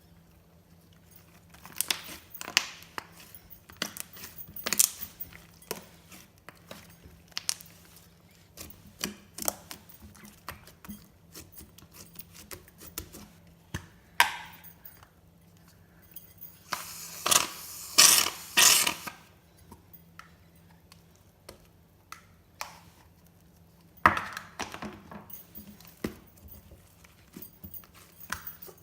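Glossy slime being squished and stretched by hand, giving irregular sticky clicks and pops, with a denser burst of loud crackling a little past halfway.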